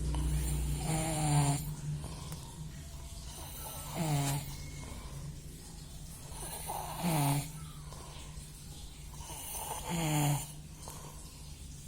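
A person snoring, four snores about three seconds apart, each one sliding down in pitch as it ends.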